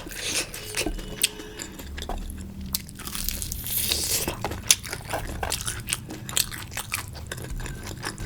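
A person biting and chewing food close to the microphone, with many sharp, irregular mouth clicks.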